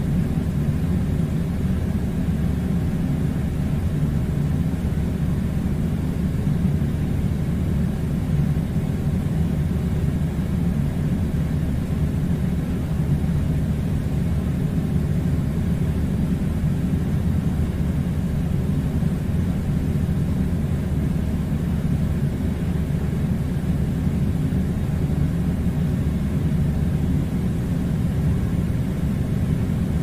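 Air conditioner running with a steady low rumble and hum that does not change.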